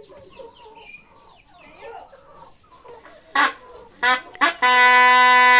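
Chickens clucking for the first few seconds. Then a Sundanese tarompet, a wooden shawm blown through a reed made from a chicken-feather quill, sounds three short test blasts and, near the end, settles into a loud steady held note. The instrument has gone long unplayed and is being tested.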